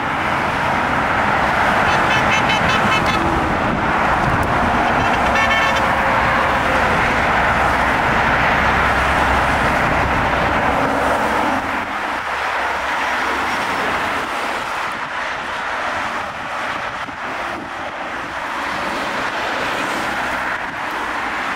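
Cars going past on a highway with horns honking. Heavy road noise for about the first half eases off in the second half.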